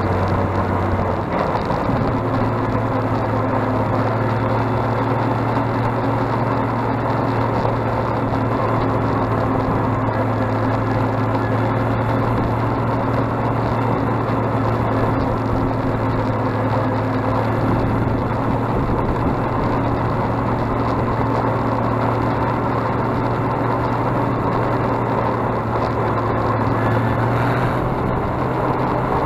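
Six-cylinder engine of a Fordson Power Major tractor running steadily as it drives along the road, heard from the driver's seat. The engine note steps up slightly about a second in, then holds even.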